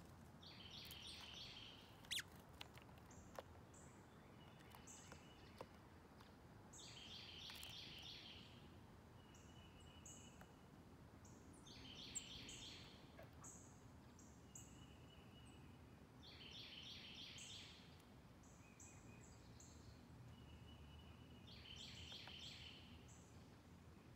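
Faint songbird singing a short repeated phrase about every five seconds, five times, with scattered short high chips between phrases and a few sharp clicks. Otherwise low outdoor background hiss.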